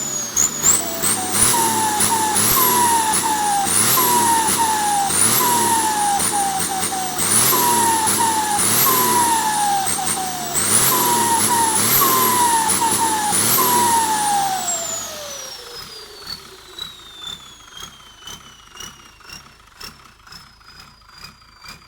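Komatsu T04 turbocharger whistling on a running engine. The high whine climbs with each blip of the throttle and falls back, over and over. In the last several seconds it winds down in one long falling whine as the revs drop away.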